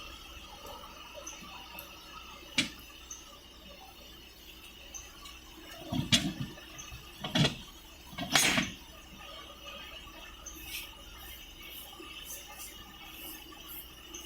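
A few sharp metallic knocks and clinks, the loudest three in the middle, over a faint steady high-pitched squeal.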